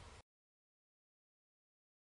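Near silence: a faint tail of the preceding sound dies away within the first quarter second, then the audio is dead digital silence.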